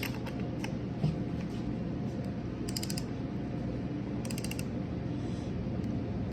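Ratchet wrench clicking in two short, rapid bursts as nuts are run down on cylinder head studs, with a single light knock about a second in, over a steady low hum.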